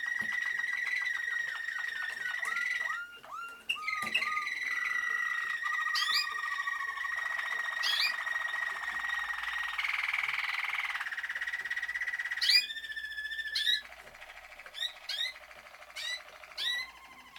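Malinois (Waterslager) canaries singing: long held notes near 2 kHz over rapid rolling trills, broken by quick upward-sweeping notes. About 14 s in the song thins out to short, separate rising notes.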